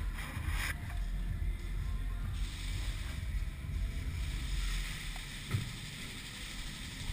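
Wind buffeting the microphone as a steady low rumble with a faint hiss, broken by a single soft knock about five and a half seconds in.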